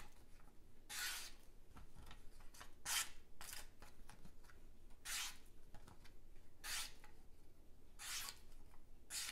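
Sharp GiantMouse ACE Atelier knife with an Elmax steel blade slicing through a paper coupon mailer. There are about eight short, hissing cuts, spaced unevenly a second or two apart. It is an out-of-the-box sharpness test, and the blade cuts cleanly: "slicey".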